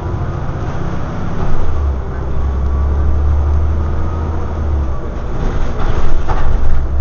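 Cabin noise aboard a Scania OmniDekka double-decker bus on the move: a steady low engine drone over road noise. The drone dips briefly twice, and a cluster of rattles and knocks comes near the end.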